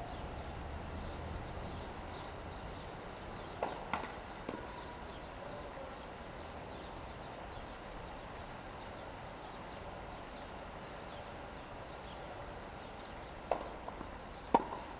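Tennis ball knocks on a hard court: a few sharp bounces or racket strikes about four seconds in and again near the end, the loudest near the end, over steady outdoor hiss.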